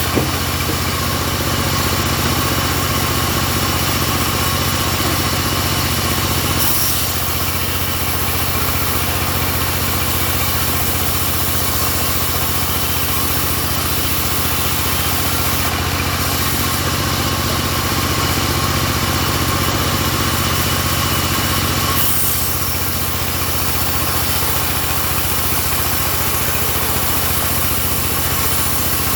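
Engine of a homemade bandsaw sawmill running steadily, its sound shifting slightly about seven seconds in and again about twenty-two seconds in.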